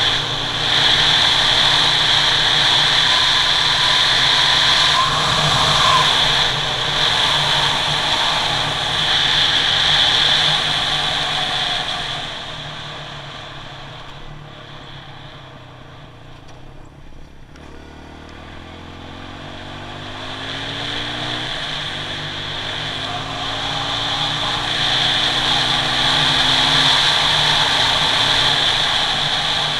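Kawasaki KLX140G dirt bike's small single-cylinder four-stroke engine running at road speed under heavy wind rush on the helmet camera. About halfway through it eases off and goes quieter as the bike slows. Then the revs climb, break off briefly and climb again as it upshifts, and the wind noise builds back up.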